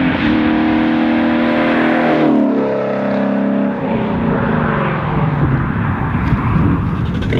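Ford Mustang GT350's 5.2-litre flat-plane-crank V8 through a Corsa 3-inch cat-back exhaust with double X-pipe, running at high revs and then dropping in pitch in two steps as the revs fall away, ending in a lower, rougher burble.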